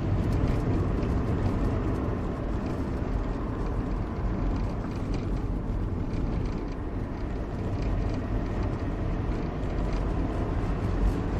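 Citroën BX 19RD's non-turbo 1.9-litre diesel engine running on the move, with steady road and tyre noise.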